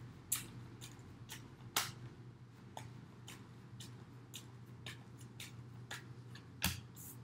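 Tarot cards being handled and drawn from a deck onto a wooden table: a string of soft, irregular clicks and taps, a few louder ones, over a steady low hum.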